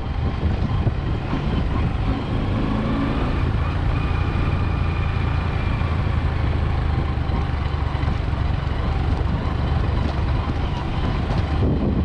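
Steady low rumble of a vehicle's engine and tyres as it drives along an unpaved, potholed dirt road.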